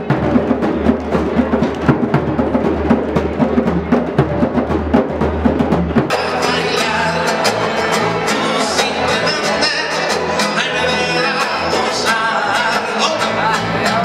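Hand drumming on djembes, fast dense strokes from several drums. About six seconds in, it cuts suddenly to other music with singing.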